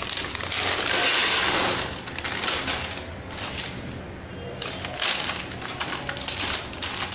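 Raw peanuts poured from a plastic bag into a steel sieve in a steel bowl, a dense rattle loudest for the first couple of seconds. Then the plastic bag rustles as it is shaken out.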